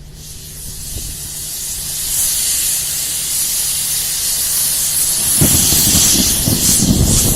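Heavy rain hissing, building up over the first two seconds and then holding steady, with an irregular low rumble joining from about five and a half seconds in.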